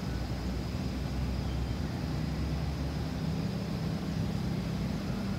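Distant Airbus A320-214 jet airliner, its CFM56-5B turbofan engines heard as a steady low rumble.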